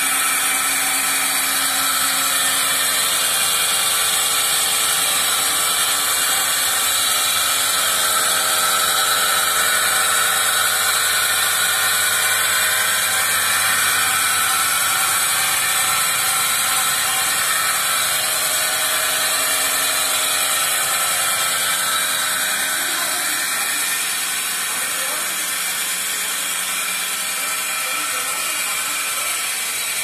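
Milking machine's belt-driven vacuum pump running steadily, with a strong hiss of air over a steady hum; it becomes a little quieter about three quarters of the way through.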